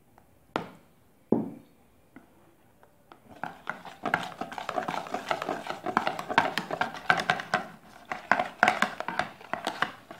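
Wire whisk beating a flour-and-water batter in a plastic tub: two single knocks near the start, then from about three and a half seconds in a fast, continuous clatter of whisk strokes.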